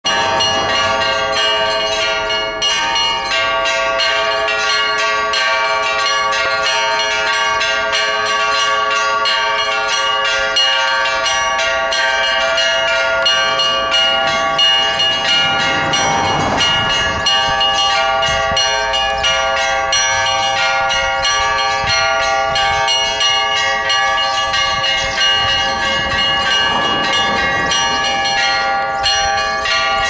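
Orthodox church bells in a convent bell tower ringing a continuous peal: many bells of different pitches struck in quick succession, several strikes a second, their tones ringing on and overlapping.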